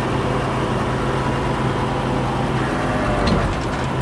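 Crane truck's engine running steadily, with a short clatter a little over three seconds in.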